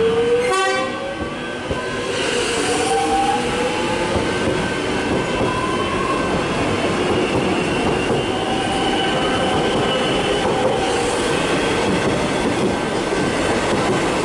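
Metro Trains Melbourne X'Trapolis 100 electric suburban train pulling out of the station. Its traction motors whine upward in pitch as it gathers speed, over steady wheel-on-rail rumble as the carriages roll past.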